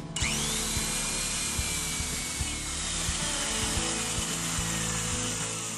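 Electric drill boring into a wooden door through the lock-fitting jig's guide, cutting in suddenly just after the start. A whine sinks slowly in pitch as the drilling goes on.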